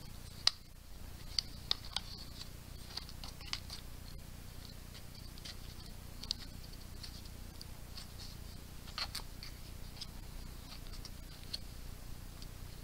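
Scattered small plastic clicks and taps as an action camera is handled and fitted into its suction-cup mount, the sharpest click about half a second in, over a faint steady low hum.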